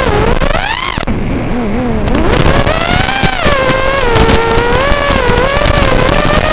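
Racing quadcopter's brushless motors and 3-blade props whining, the pitch rising and falling with the throttle. About a second in the throttle drops and the whine sinks low. It climbs back up just after two seconds and then wavers as the quad manoeuvres.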